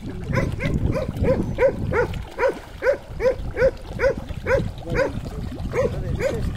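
A dog barking over and over, about three barks a second in an even rhythm.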